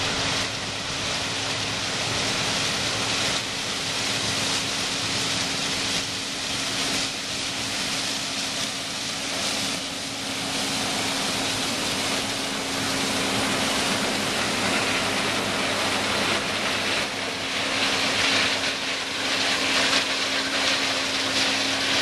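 New Holland combine harvester running as it harvests corn: a steady machine hum at one constant pitch under a dense, even hiss.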